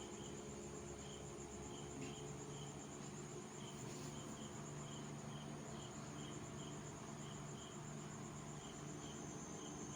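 Insects chirping faintly: a continuous high-pitched trill, with a softer chirp repeating irregularly beneath it, over a faint low hum.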